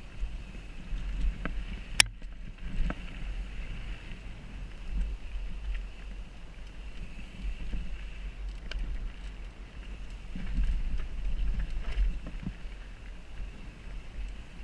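Mountain bike riding down a trail, heard through a helmet-mounted camera: steady wind rumble on the microphone with the rattle of the bike, broken by several sharp knocks, the loudest about two seconds in.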